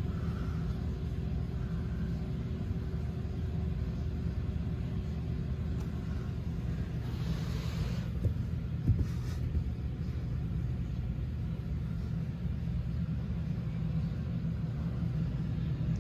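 Steady low rumble, with a brief hiss about seven seconds in and a couple of soft knocks just after.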